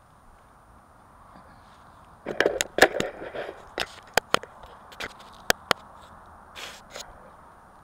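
Handling noise from a camera being picked up and moved: a quick cluster of loud knocks and clicks a couple of seconds in, then scattered sharp single clicks, over a faint steady background hiss.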